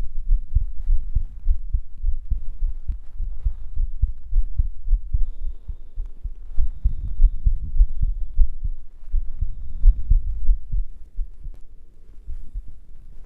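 A man's heartbeat pounding: a fast, steady run of deep low thumps, fading somewhat over the last couple of seconds.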